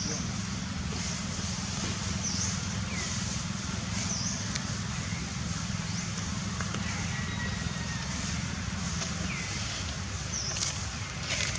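Outdoor background: a steady low rumble and hiss, with a few short, high chirps and faint clicks scattered through it.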